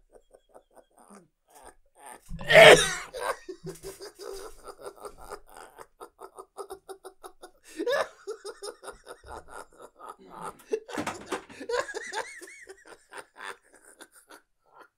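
People laughing hard in long runs of rapid "ha-ha" pulses, with a loud cough about two and a half seconds in.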